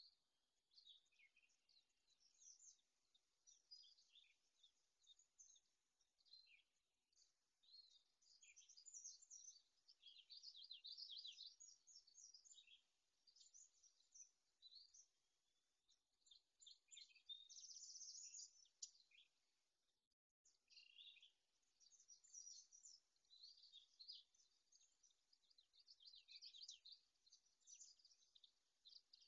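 Faint chorus of small songbirds chirping and trilling, many short overlapping calls in busy clusters, with a brief cut-out about twenty seconds in.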